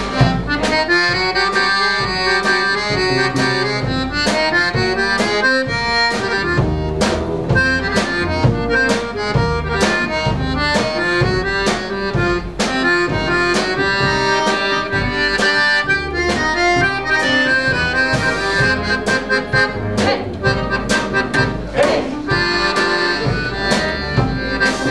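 Klezmer band playing an instrumental passage, with accordion, violin, clarinet, upright bass and drum kit over a steady beat.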